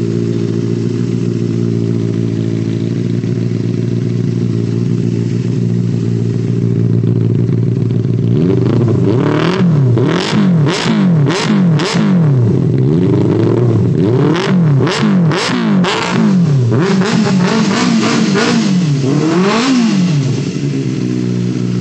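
Benelli 600's inline-four engine idling steadily. After several seconds it is revved in a run of quick throttle blips, its pitch rising and falling, with sharp cracks among the blips. Near the end it settles back to a steady idle.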